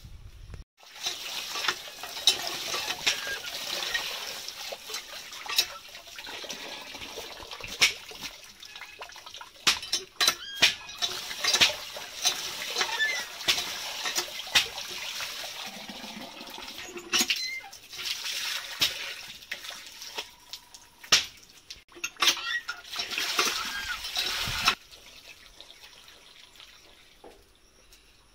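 Water splashing and pouring as small river fish are washed by hand in a steel pot and rinsed in a plastic basket under a stream of water. Scattered clicks and knocks of handling run through it, and it turns much quieter near the end.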